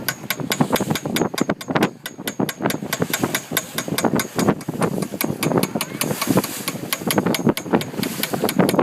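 Speedboat hull slapping and banging on a rough, choppy sea in rapid, irregular knocks, over the running outboard engine.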